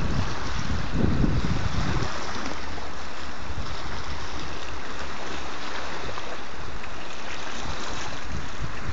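Steady wash of choppy sea water, with wind gusting on the microphone in the first couple of seconds and easing after.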